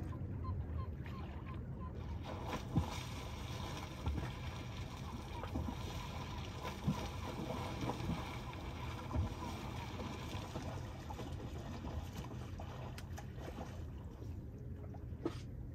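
Sea water sloshing and splashing close to the microphone as people swim, over a steady low rumble, with a few short knocks.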